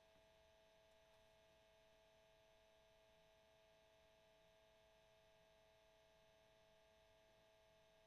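Cassette tape player's motor running, very faint: a steady, unchanging hum with one clear pitched tone over a light hiss.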